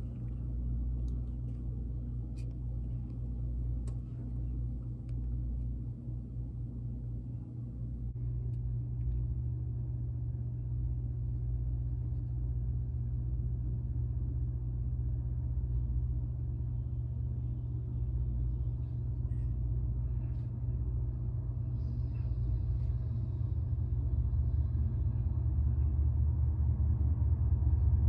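Low, steady rumble of passing trains heard through window glass: first an Amtrak passenger train, then, after a cut about 8 seconds in, a CSX freight train led by diesel locomotives, whose rumble grows louder near the end.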